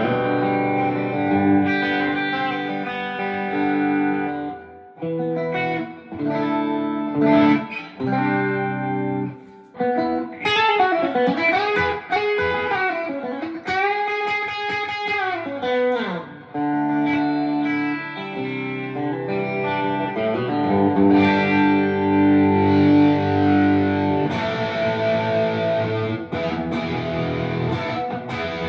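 Electric guitar with P90 pickups played through a ToneKing Royalist preamp and powered speakers, its volume knob rolled back to about 3¼. Chords and single-note lines, with wide, wavering string bends in the middle and held chords toward the end.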